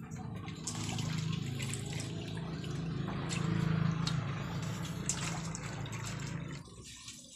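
Water splashing and running as a batch of kuhol snails is washed in a metal basin and drained in a metal colander, with scattered sharp clicks of shells; the water sound drops away near the end.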